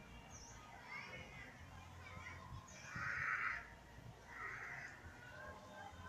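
Two harsh, noisy animal calls, about three and four and a half seconds in, over a few faint high chirps.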